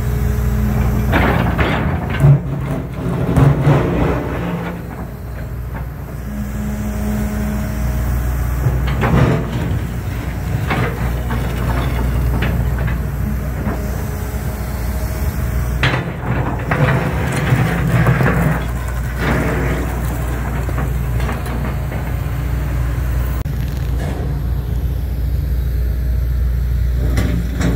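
Hitachi hydraulic excavator working broken asphalt and concrete, its diesel engine a steady low hum, with three bouts of clanking and scraping from the bucket on the rubble. The loudest bangs come a few seconds in.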